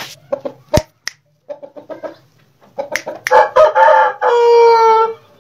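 Aseel rooster crowing: after some short calls and a few sharp clicks, it lets out a loud crow about three seconds in. The crow has a few quick broken notes and ends in one long held note.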